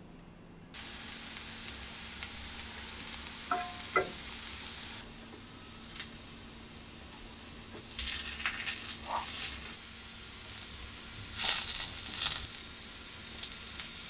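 Slices of sweet potato and lotus root sizzling steadily in a frying pan. In the second half come louder bursts of sizzling with clicks as the pieces are turned with chopsticks.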